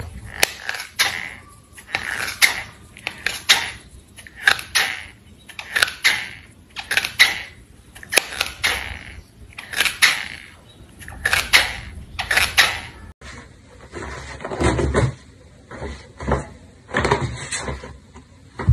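A cat gnawing at a rubber slide slipper: a rough rubbing squeak repeated about once a second. About two-thirds of the way through it gives way to dull thuds and scrabbling as a kitten slips about on the smooth side of a bathtub.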